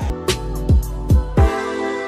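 Background music: four deep drum hits that drop in pitch, then a held chord from about one and a half seconds in.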